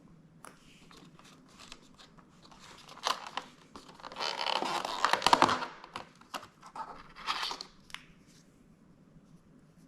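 Hands opening cardboard packaging of a coffee-capsule advent calendar: scattered small taps and clicks, then a loud tearing, rustling stretch about four to six seconds in and a shorter one about seven seconds in.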